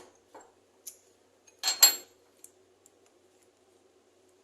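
Metal clinks and knocks of a bearing puller and pliers working on a washing-machine motor's bearing, with one loud, ringing metallic clatter just under two seconds in.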